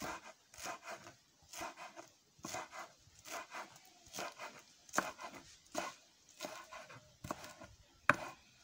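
Kitchen knife chopping a bunch of fresh coriander (dhania), with quick strokes about two a second, often in pairs.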